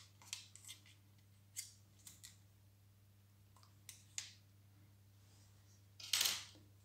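Small sharp clicks of a pick and a metal retaining clip being worked out of a plastic pressure-washer lance, about a dozen scattered over the first four and a half seconds. About six seconds in comes a louder, brief rustle as the clip is set down.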